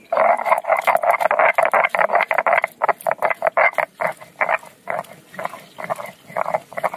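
Garlic and ginger being ground on a shil-nora, a flat stone slab worked with a hand-held stone roller: stone scraping on stone in quick back-and-forth strokes. The strokes run almost together for the first couple of seconds, then come apart to about two or three a second.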